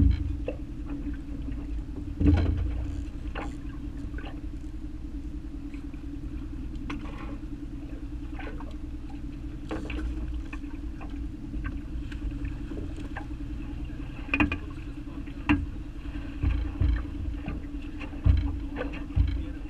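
A boat's motor runs with a steady low hum. Scattered knocks and thumps sound over it, with a loud one about two seconds in and several more near the end.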